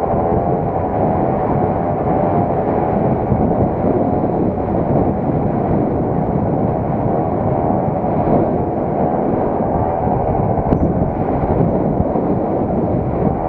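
Scooter engine running at riding speed, its note wavering up and down, over steady wind rush on the microphone.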